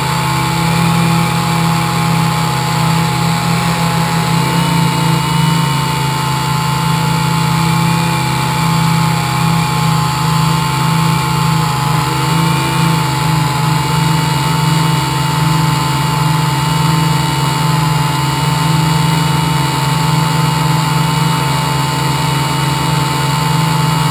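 Electric motors and propellers of a multirotor model aircraft hovering, heard from a camera mounted on the craft itself: a steady buzz with a high whine holding an even pitch.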